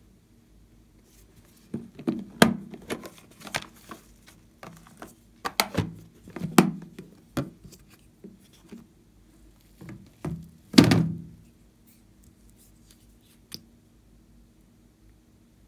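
Hard plastic toy case being handled and opened: a run of sharp clicks, knocks and clatters, with the heaviest thunk about two-thirds of the way through.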